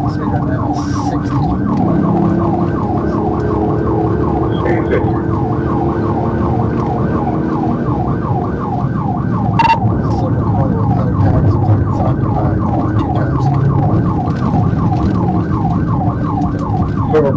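Police patrol car siren in fast yelp mode, a rising-falling wail repeating about four times a second, heard from inside the pursuing car over steady engine and road noise at highway speed. A single sharp click about ten seconds in.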